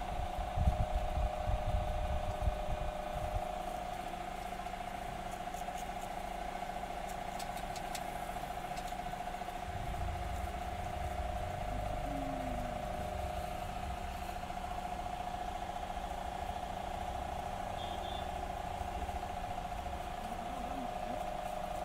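A steady mechanical hum, with low rumbling handling noise in the first few seconds.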